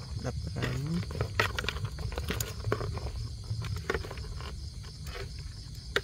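Metal tweezers clicking and tapping against hard-shelled giant millipedes and the bowl, in many short sharp clicks, over a low steady hum. A short low rising tone sounds in the first second.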